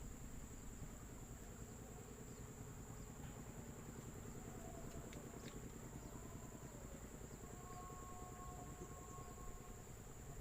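Faint insect chorus, likely crickets, with a steady high-pitched trill, over a low, rapid pulsing hum.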